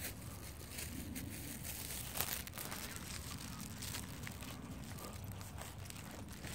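Footsteps on dry grass and dirt, with a few scattered sharp clicks, over a steady low rumble on the microphone.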